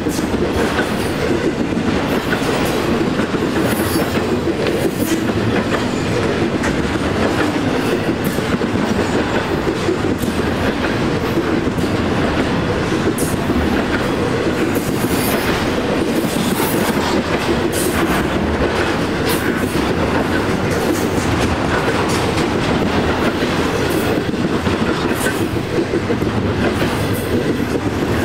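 Double-stack intermodal freight train's loaded well cars rolling past close by: a steady rumble of steel wheels on rail, with scattered clicks and clanks from the wheels and cars.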